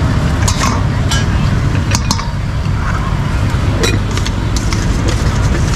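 Steady low rumble of road traffic, with scattered sharp clinks and scrapes of a metal utensil against a wooden chopping block and a stainless steel mixing bowl as chopped beef and green chilies are stirred.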